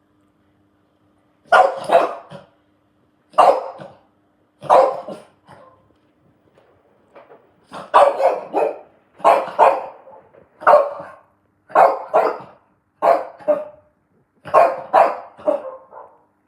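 French bulldog barking repeatedly, in short bouts of two or three sharp barks every second or so.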